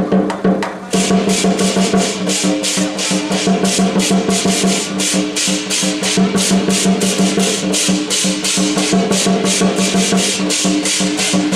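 Percussion music for a Chinese dragon dance: a fast, even beat of about four strokes a second over a steady sustained tone.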